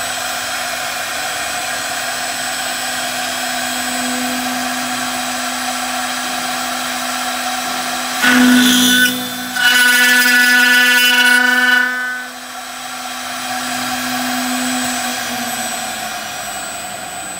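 CNC router spindle running with a steady whine. About eight seconds in the cutter bites into the aluminium profile, giving a loud, shrill cutting screech for about four seconds with a brief break. After that the spindle runs on more quietly and fades near the end.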